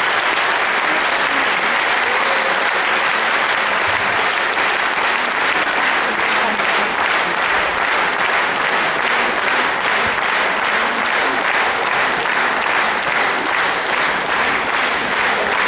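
Large audience applauding, dense and steady. About halfway through the clapping falls into a rhythmic beat in unison, roughly two to three claps a second.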